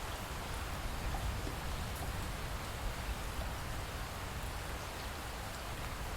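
Steady rain falling, an even hiss with occasional single drops ticking on a surface.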